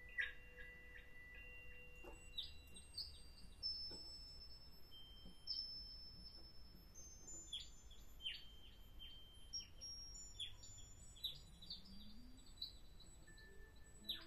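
Yamaha MODX+ synthesizer playing an ambient patch: short, high, bird-like chirping blips, each repeated as fading echoes, over faint steady high tones. A low tone glides upward near the end.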